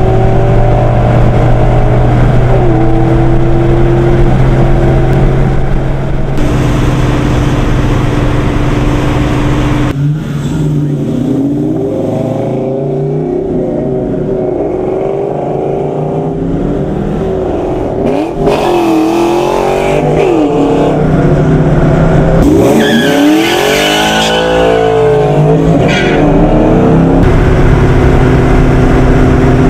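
1997 SVT Cobra Mustang's DOHC 4.6-litre V8 breathing through longtube headers, an H-pipe and a Flowmaster cat-back exhaust. It drones steadily while cruising, then revs up and down repeatedly under acceleration, then settles back to a steady drone near the end.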